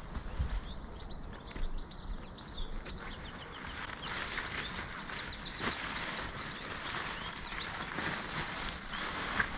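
Small birds chirping with a short trill, then from about three and a half seconds in a steady crinkly rustling as a camping air mat is handled and packed up.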